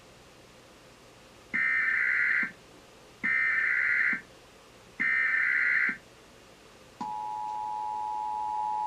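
Emergency Alert System header: three loud bursts of SAME digital data screech, each about a second long. About seven seconds in, the EAS two-tone attention signal begins, a steady dual tone of 853 and 960 Hz.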